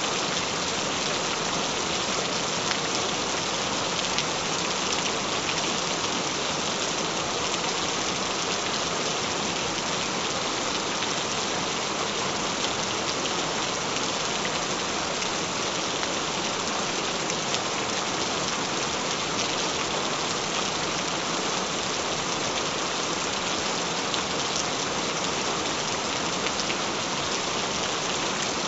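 Gentle rain falling steadily: an even hiss with a fine patter of drops.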